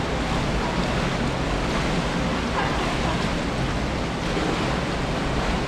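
Steady rushing of a fast-flowing river over rocks.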